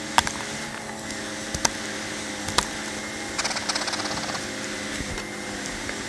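Metal hive tool prying up the wooden lid of a beehive: a few sharp clicks, then a short run of rapid crackling ticks about halfway through as the lid works loose, over a steady hum of honey bees.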